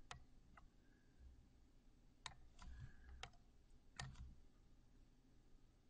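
Faint, scattered clicks of a computer mouse and keyboard: about five sharp single clicks a second or so apart, over a low room hum.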